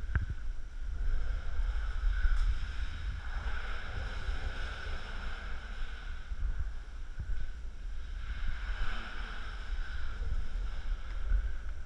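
Wind buffeting an action camera's microphone: an uneven low rumble with a faint hiss above it, swelling and easing.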